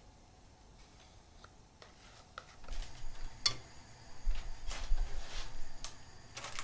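Spatula scraping poppy-seed sponge batter from a glass bowl and spreading it over baking paper in a metal pan: soft scrapes and light knocks. They start a few seconds in, with the loudest knocks near the middle.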